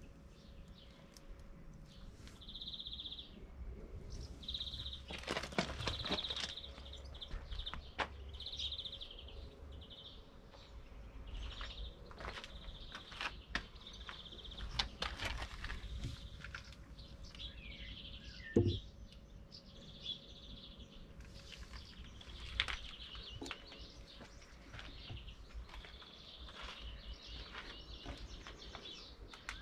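A small bird singing short, high, trilling phrases over and over, with scattered crunching steps on gravel. A single sharp knock comes a little past halfway.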